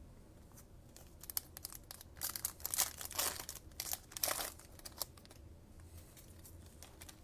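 A 2020 Panini Mosaic blaster pack's wrapper being torn open and crinkled: a run of irregular rustling, tearing bursts from about a second in to about five seconds in, loudest in the middle.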